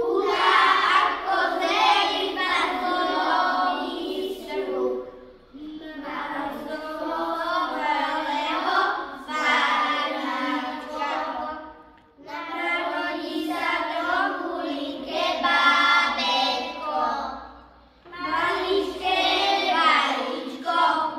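A group of young children singing a song together, in four long phrases with short pauses between them.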